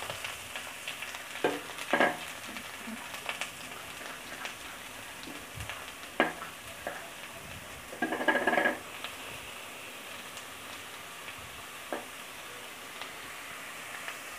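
Chopped onion sizzling in hot oil in a steel kadai, a steady frying hiss. A few sharp knocks and one longer clatter of metal come through it, the clatter a little past the middle.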